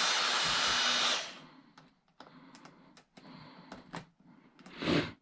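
Electric drill with a screwdriver bit spinning as it backs a screw out of a microwave's sheet-metal casing, stopping about a second in. Then come light clicks and taps of metal parts being handled, with a short louder clatter near the end.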